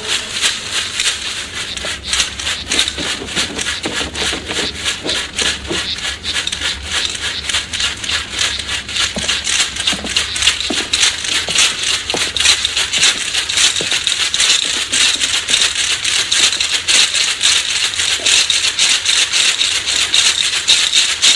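Cicadas chirring: a steady, rasping pulse at about five beats a second that stops abruptly at the end.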